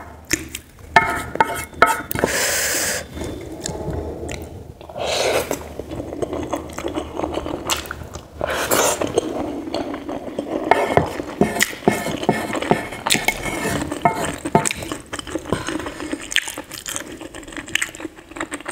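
Close-miked eating sounds: wet chewing of mouthfuls of macaroni in a creamy sauce, with a wooden spatula scraping and clicking against the pan as more is scooped up.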